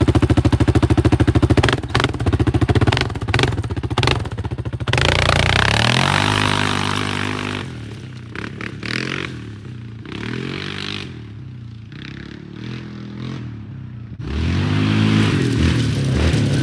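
Yamaha Grizzly 700 ATV's single-cylinder engine running through an aftermarket exhaust tip: steady running at first, then a hard acceleration about five seconds in with the pitch rising and falling, quieter in the middle with repeated rising and falling revs, and loud acceleration again near the end.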